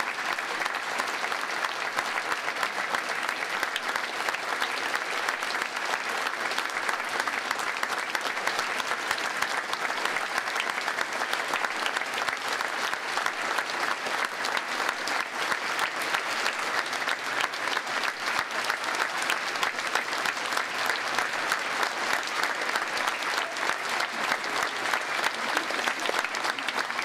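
Audience applauding: many hands clapping in a dense, steady crackle, holding at an even level.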